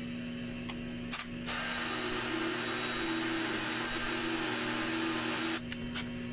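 A WEN benchtop lathe spins an abrasive disc with a steady motor hum. About a second and a half in, a thin metal toy axle, turned in a cordless drill, is pressed against the disc to polish it, giving a loud, even grinding hiss over a wavering drill-motor whine. The grinding stops abruptly about a second before the end.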